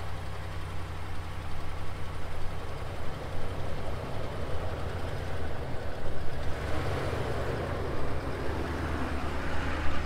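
Ram pickup truck's engine running at low revs as the truck pulls away slowly over grass, the engine and tyre noise growing louder in the second half as it comes closer.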